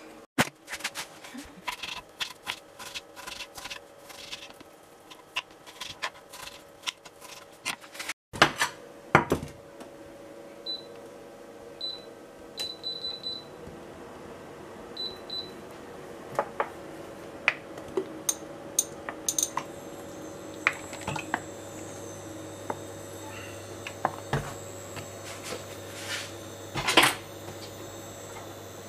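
Scattered kitchen clicks and knocks, then the touch controls of an induction hob beeping several short times as it is switched on and set. From about two-thirds of the way in, the hob runs with a steady low hum under a frying pan, with the odd knock.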